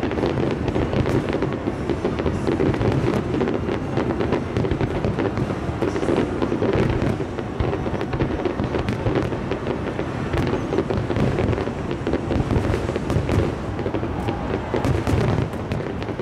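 Aerial fireworks shells bursting in quick, continuous succession: dense bangs and crackles over a steady low rumble.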